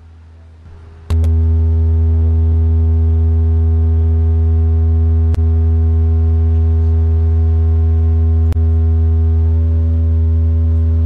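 A loud, steady low drone with a row of overtones starts abruptly about a second in and holds at one unchanging pitch, broken by a few faint clicks.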